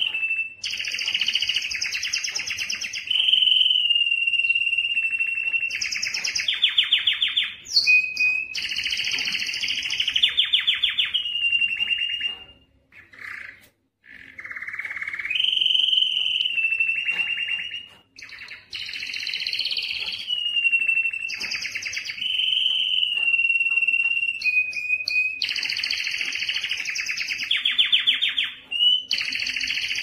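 Domestic canary singing a long, loud song of fast rolling trills and held whistled notes. The song breaks off briefly just before the middle, and again for a moment a few seconds later.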